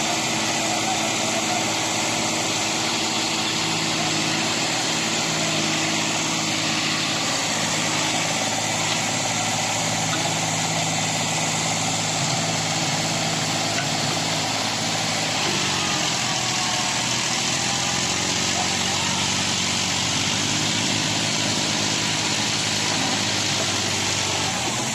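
Heavy diesel machinery engine running steadily at low revs, its note changing about halfway through.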